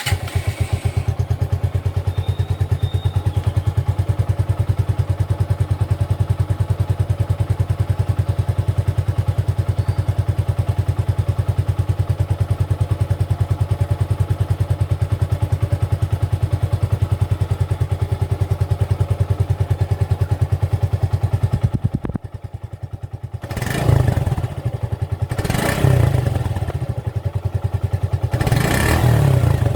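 2020 Suzuki Gixxer motorcycle exhaust idling steadily, then dipping briefly about three-quarters of the way through and revved in three short throttle blips near the end.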